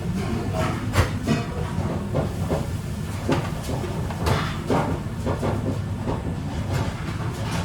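Kitchen handling sounds: irregular clicks, knocks and light clatter of food containers and utensils being moved, over a steady low hum.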